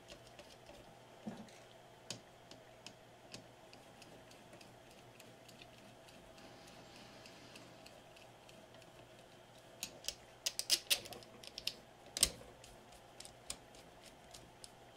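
Small metal clicks and taps of a screwdriver and mounting nuts being worked onto a turntable motor, scattered and light, with a quick run of sharper clicks about ten seconds in and one louder click just after.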